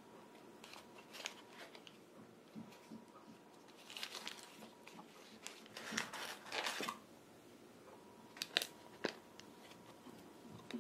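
Paper donut liners and a cardboard box rustling and crinkling as hands lift sugared filled donuts out, in a few short scattered bursts, loudest about six to seven seconds in.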